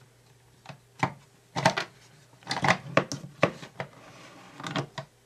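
Plastic parts of a Spy Video toy car being handled and fitted together, giving a string of irregular light clicks and knocks.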